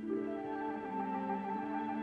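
Orchestral film music with sustained notes moving in steps, and a higher melody line coming in about half a second in.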